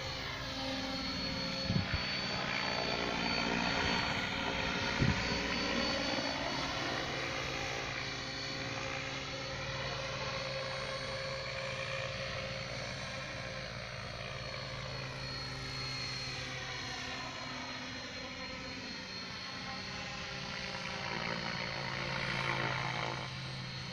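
Mikado Logo electric RC helicopter in flight: a steady rotor drone with a high, constant motor whine, the tone shifting in slow sweeps as the model moves about.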